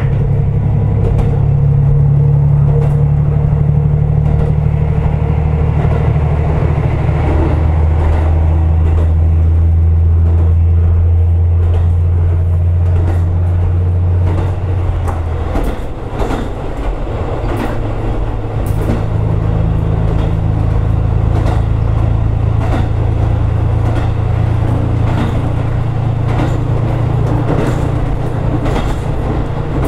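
Diesel railcar under way: the engine's low drone with steady tones, and wheels clicking over rail joints. About halfway the engine note drops away and the sound eases a little, then the drone comes back a few seconds later.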